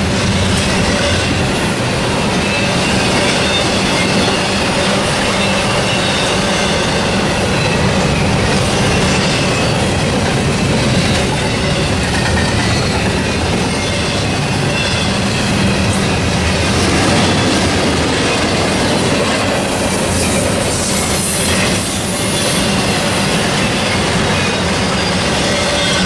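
Double-stack intermodal freight train's container well cars rolling past: a steady, loud rumble of steel wheels on rail, with clacking and a thin, high wheel squeal wavering over it.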